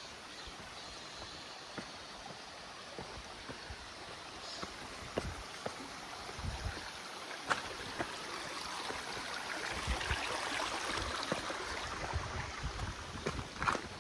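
A mountain stream running over rocks, growing louder a few seconds past the middle, with footsteps on the trail as scattered short steps.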